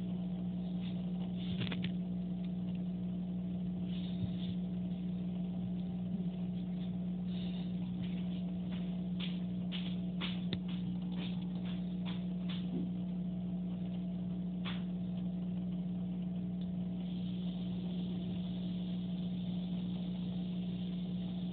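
A steady electrical hum, with scattered faint clicks and ticks over it.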